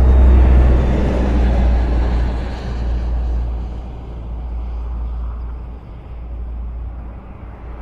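Road traffic on a highway: a vehicle rumbles close by in the first couple of seconds, then the sound eases to a steadier, lower traffic noise.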